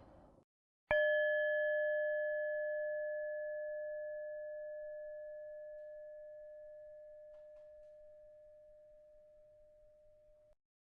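The end of a deep out-breath, then, about a second in, a single struck meditation bell rung once as the start signal. Its clear tone fades slowly for about nine seconds and is then cut off.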